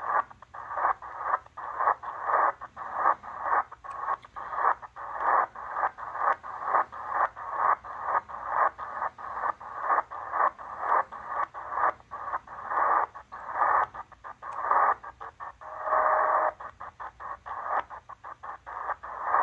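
Tecsun PL-330 shortwave receiver in upper sideband mode giving empty-band static through its speaker while being tuned step by step. The hiss cuts out for a moment at each step, two or three times a second, with a brief steady whistle from a carrier about 16 seconds in.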